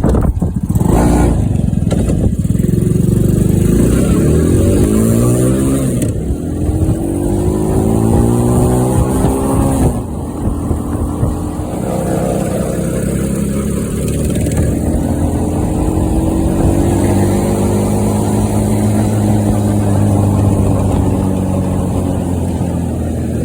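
Mini Jeep's small engine running under way as it drives, its pitch rising twice in the first ten seconds as it speeds up, then holding fairly steady with slight rises and falls.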